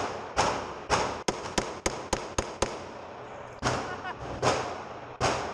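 Handgun shots, about ten of them: a quick run of shots in the first half, then three slower, evenly spaced shots in the second half.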